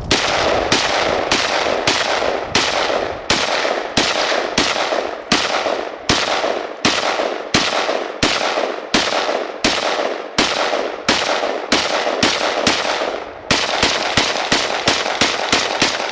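Rock River Arms PDS gas-piston rifle in 5.56 firing a long string of semi-automatic shots, each with an echoing tail, about one and a half a second at first and quickening to about three or four a second near the end. The rifle keeps cycling shot after shot after being buried in snow.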